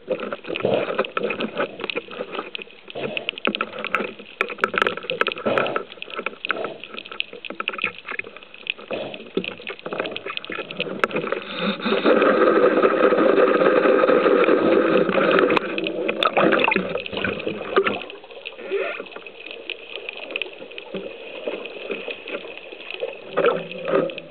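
Underwater sound through a camera housing on a speargun during a free dive: a watery rush with many crackling ticks, growing louder and steadier for about four seconds around the middle. Near the end there is a short burst of bubbling.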